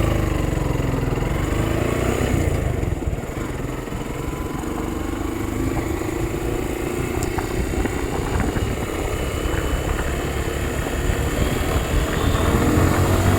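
Motorcycle engine running while riding, its pitch rising and falling with speed changes, over a heavy low rumble.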